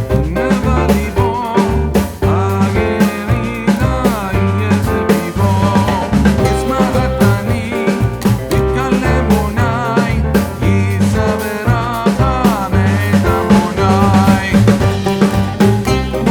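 Background music with a steady drum beat and a melody line, possibly with a voice.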